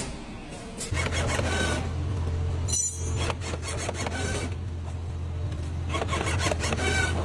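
Production-line machinery: a steady low hum starting about a second in, with clattering, rattling bursts that come back about every two and a half seconds.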